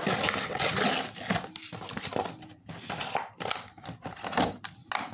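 Clear plastic blister packaging and its cardboard backing card crinkling and crackling in irregular bursts, with clicks, as a toy package is pulled apart by hand.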